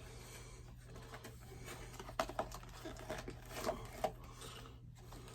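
Faint rubbing and rustling of a small cardboard box being handled and opened, with a few light clicks and taps after about two seconds.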